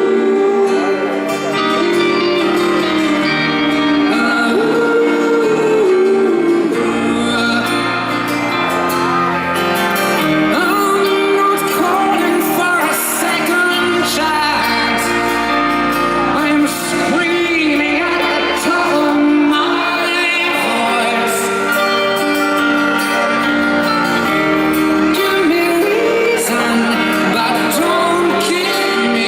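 Live pop-rock ballad performance: a band playing with singing over it.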